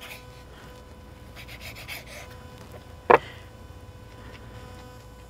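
Soft rustling as raw bacon strips are handled and pulled apart by hand, with one short, sharp breath through the nose about three seconds in, over a faint steady hum.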